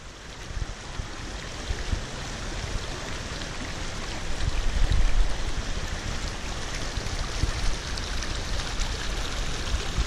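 Mountain stream rushing over rock: a steady water rush with a deep rumble underneath, fading in at the start and swelling briefly about halfway.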